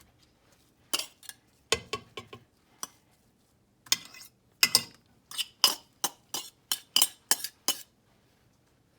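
A kitchen utensil clinking and tapping against a mixing bowl while imitation crab meat is broken up and flaked into a salad: a few scattered clinks, then a steady run of taps, about three a second, in the second half.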